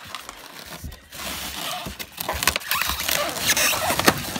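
Plastic cellophane wrapping rustling and crinkling, with cardboard rubbing and a few light knocks, as the wrapped drill head is gripped and pulled about in its box; it grows louder about a second in.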